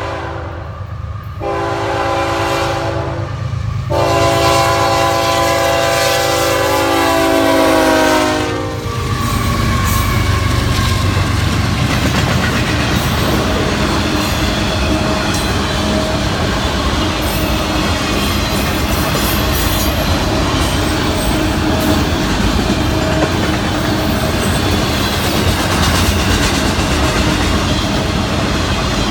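Florida East Coast freight locomotive's horn sounding three long blasts for a grade crossing, the last one dropping in pitch as the engines pass. After that, freight cars roll by with a steady rumble and rhythmic wheel clatter over the rail joints.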